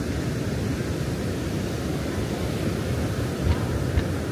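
Steady low rumble of surf and wind on the microphone, with a crowd murmuring. Near the end come two short firework thuds, about half a second apart.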